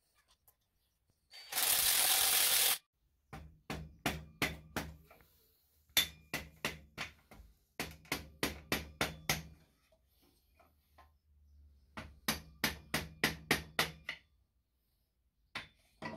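A cordless driver runs for about a second near the start. Then the stainless 4-into-1 exhaust is knocked with a hammer through a wooden block, driving the collector forward onto the header pipes. The knocks come in four quick runs, about four or five sharp knocks a second, each with a short ringing tone.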